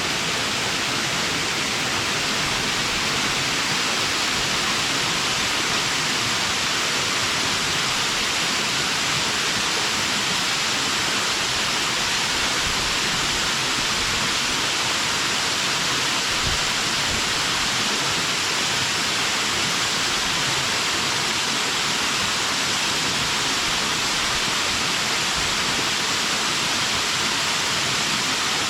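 Water pouring over a stream weir, a steady, even rush of falling water with no breaks.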